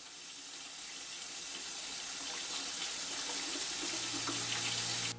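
Water running from a tap into a utility sink, a steady rush that swells over the first second or so and then holds.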